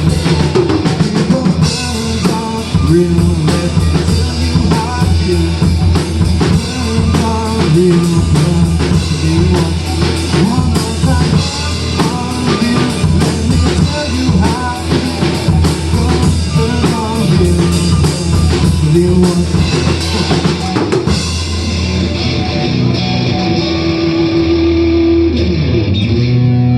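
Rock band playing an instrumental passage with no singing: a drum kit keeping a busy beat under guitar. About three-quarters of the way through the drums drop out and the band settles onto a few long held notes that ring out.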